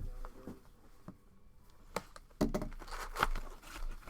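Hands handling trading-card packs and cards: scattered light taps and rustles, with a quiet gap of about a second near the middle and a denser cluster of handling noise just after it.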